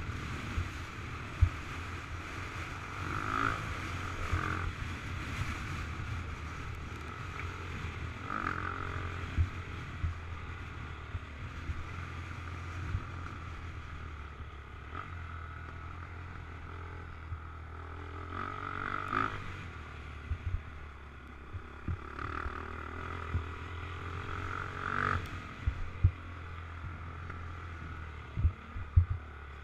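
Motocross dirt bike engine running as it is ridden around a dirt track, heard from a helmet-mounted camera with wind on the microphone. The engine sound swells several times, and sharp knocks come now and then.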